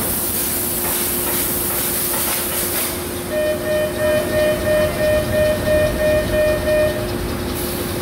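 Ship's main engine being started from the engine-side control stand: a loud hiss of starting air for about three seconds, then an alarm beeping about three times a second for several seconds, over steady engine-room machinery noise. The hiss returns briefly near the end.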